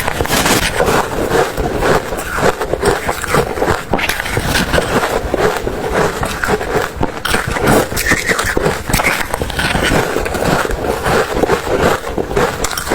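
Ice being chewed: a dense, continuous run of crisp crunches and cracks with no pause.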